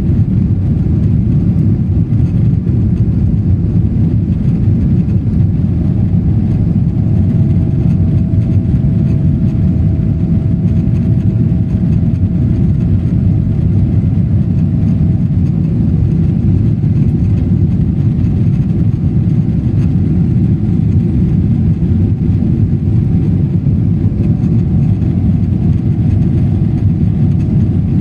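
Airplane engine noise during a takeoff: a loud, steady low rumble, with a faint steady whine above it partway through.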